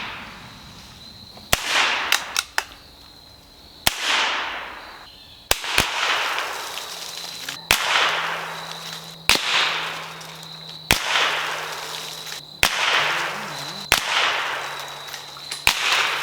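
Rifle shots fired one after another at a pumpkin, about one every second and a half, each sharp crack followed by a short fading rush of noise.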